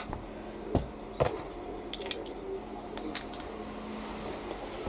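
A few light clicks and knocks, the two clearest about a second in, with smaller ticks between, over a faint steady hum.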